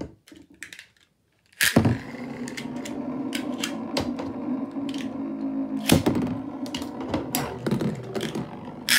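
Metal Beyblade spinning tops launched onto a plastic bin lid with a sharp clack about two seconds in, then spinning with a steady whir, broken by sharp clicks as they strike each other, one louder hit about six seconds in.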